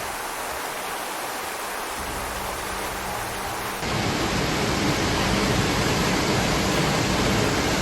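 Steady rushing of water, such as floodwater or heavy rain. About four seconds in it cuts abruptly to a louder, deeper rushing.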